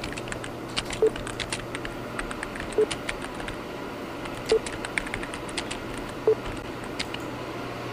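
Computer-keyboard typing clicks as on-screen text is typed out, with a short low beep about every second and three-quarters over a faint steady hum.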